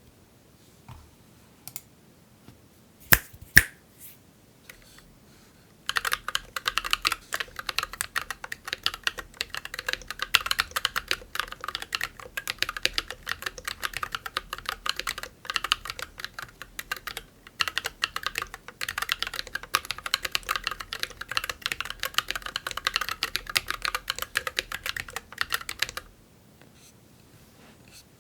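Keychron Q11 split mechanical keyboard with Glorious Panda tactile switches: a few separate clicks, two sharp louder ones about three seconds in, then about twenty seconds of fast continuous typing that stops near the end.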